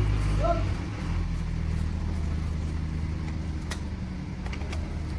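A vehicle engine idling steadily, its note dropping slightly about a second in, with a few faint metallic ticks.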